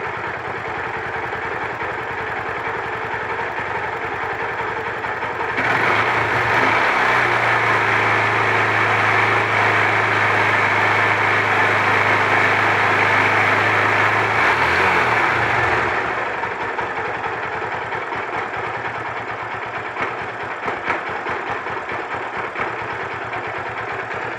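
Honda Titan 150's single-cylinder four-stroke engine running at idle, revved up about six seconds in and held at higher revs for roughly nine seconds, then settling back to idle. It runs with a newly fitted cam chain tensioner, replacing a defective one that let the cam chain rattle; the cam chain itself is near the end of its life.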